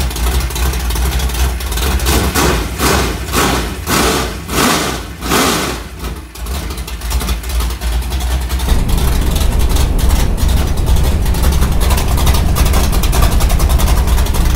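Race car engine running loud, surging again and again in the first half, then holding a denser, steady drone from about nine seconds in.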